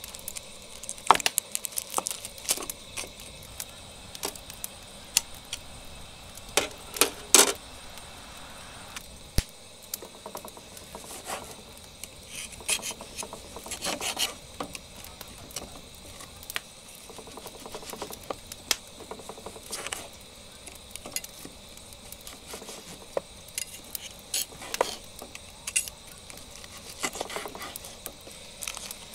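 A knife and a metal carving fork working on a wooden cutting board while grilled meat is sliced: scattered clicks, taps and short scrapes of steel against the board and the meat, with a few louder clinks about a second in and around seven seconds.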